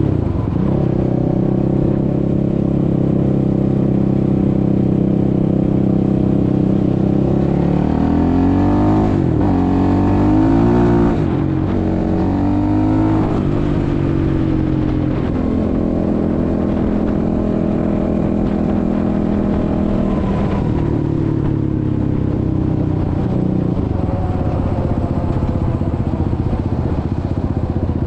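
Suzuki LTR 450 quad's single-cylinder four-stroke engine running under way at a steady pitch, its note rising and falling several times about eight to fourteen seconds in as the throttle is worked, then settling again.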